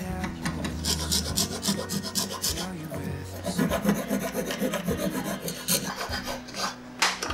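Small steel file rasping back and forth across the end of a wooden strip held in a bench vise, in quick repeated strokes.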